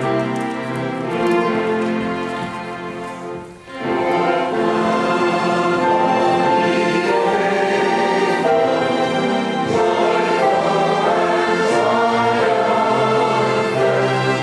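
Choir singing with orchestral accompaniment in held, sustained chords. The music fades to a brief break about three and a half seconds in, then comes back in fuller.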